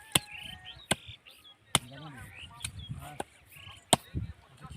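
Goat meat and bone being chopped with a heavy blade: four sharp strikes about a second apart, then a pause and a few lighter blows. Birds chirp in the background.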